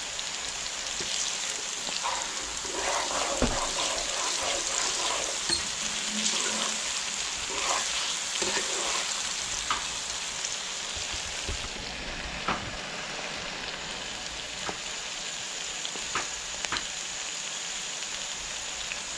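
Chopped onion and hot pepper sizzling steadily in hot oil in a wok, with scattered sharp ticks through the hiss.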